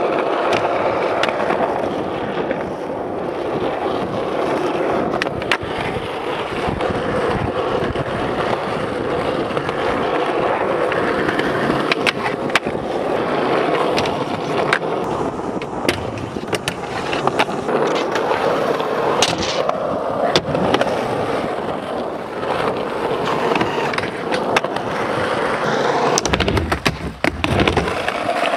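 Skateboard wheels rolling over rough, worn asphalt, a steady grainy rumble, broken again and again by sharp clacks as the boards are popped, landed and ground on a wooden ledge.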